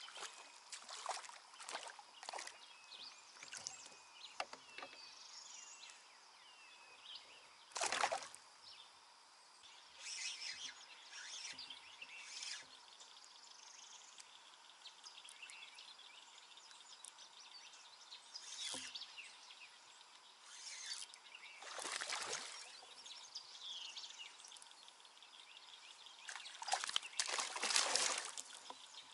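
Water sloshing and splashing in short, irregular bouts, the loudest about eight seconds in and again around 22 and 27–28 seconds. Birds sing in the background, most in the first few seconds.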